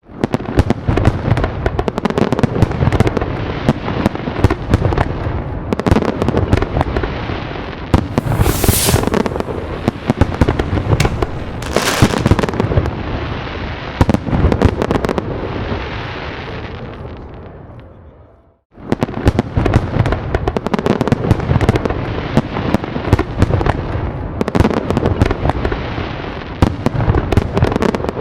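Fireworks going off in a dense, continuous barrage of booms and crackling bangs. The barrage dies away, cuts out abruptly about two-thirds of the way in, and starts again just as dense.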